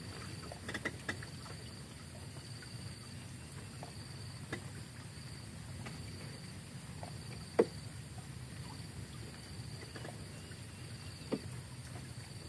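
Quiet outdoor ambience on a floating fishing raft: a faint low rumble and a thin steady high whine, broken by a few soft clicks or knocks, the sharpest about seven and a half seconds in.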